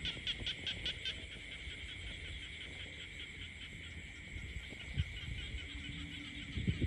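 Frog chorus: one frog's call as a fast train of pulses, about eight a second, loudest in the first second and then fainter, over a steady high-pitched trill from other callers. A low thump about five seconds in.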